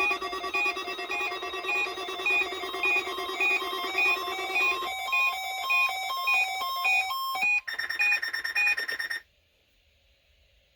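Several weather alert radios sounding at once, set off by the NOAA Weather Radio weekly test: a steady electronic alert tone with overlapping beeping at different pitches and rates. Some tones drop out about five seconds in, a higher beep joins near eight seconds, and all the alarms stop about nine seconds in.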